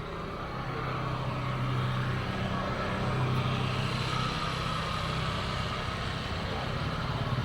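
A motor vehicle's engine running steadily, a low hum that grows a little louder about half a second in.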